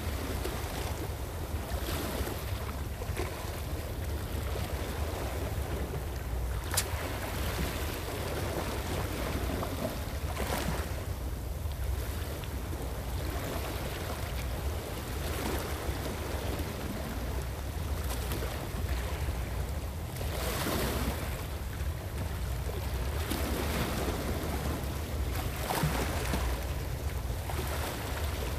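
Small sea waves washing against shore rocks, swelling every few seconds, over a steady rumble of wind on the microphone. One sharp click partway through.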